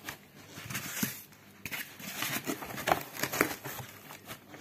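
White foam packing blocks being pressed into a cardboard box around a plastic-wrapped unit: irregular short rubbing and rustling strokes of foam against foam, plastic and cardboard.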